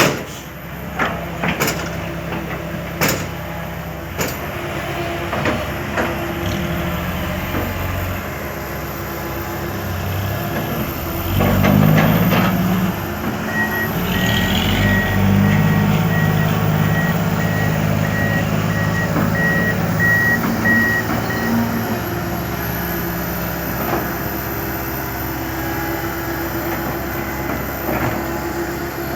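Heavy diesel earthmoving machinery running, with several sharp clanks in the first few seconds and the engine revving up about a third of the way in. A reversing alarm then beeps in an even, repeated pattern for about eight seconds over the engine.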